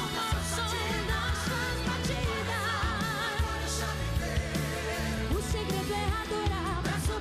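A woman singing a gospel pop song into a microphone over backing music with bass and drums, holding some notes with vibrato.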